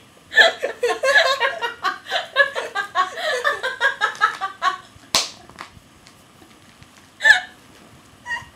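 Hearty laughter in quick, choppy bursts for about four and a half seconds. Then a single sharp slap about five seconds in, and another short burst of laughter near the end.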